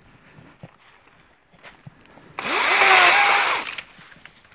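DeWalt battery-powered chainsaw triggered briefly: after a couple of seconds of faint rustling and clicks, about two and a half seconds in its motor whines up to speed with a loud chain hiss, runs for just over a second, then winds down.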